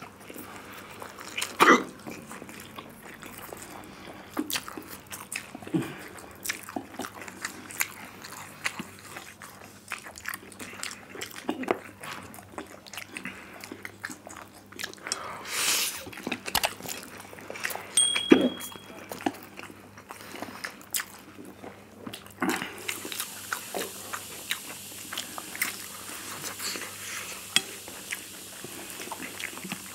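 Close-miked eating: two people slurping and chewing instant noodles, with many small wet clicks and smacks.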